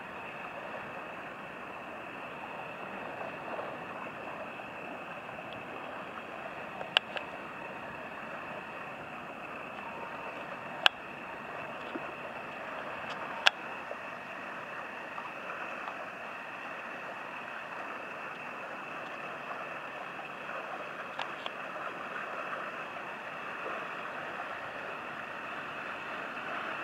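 Steady rush of river water and a passing laden inland motor barge, with a few sharp clicks standing out in the first half.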